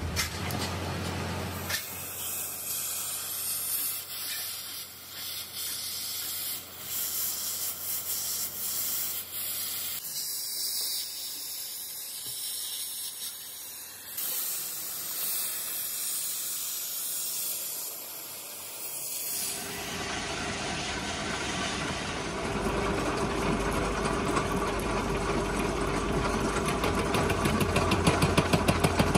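Gas torch hissing steadily as its flame heats the tip of a steel hydraulic-breaker chisel. About two-thirds of the way through, this gives way to a lathe running with a steady hum as it turns the chisel, with a regular beat near the end.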